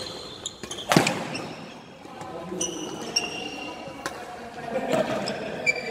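Badminton rally: rackets striking the shuttlecock with sharp cracks, the loudest about a second in, and sports shoes squeaking briefly on the court floor.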